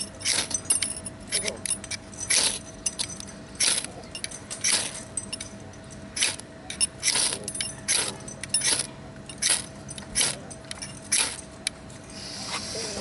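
Repeated short, sharp scraping strikes, about one a second, from attempts to ignite a section of fire cord. Near the end a softer hiss comes in.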